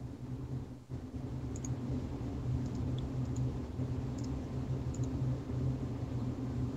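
A steady low hum with a few faint computer mouse clicks, each a quick press-and-release tick.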